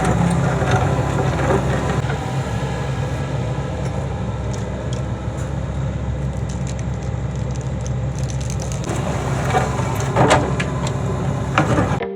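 Diesel engine of a midsize excavator running steadily, with a few knocks and clatters about nine to eleven seconds in.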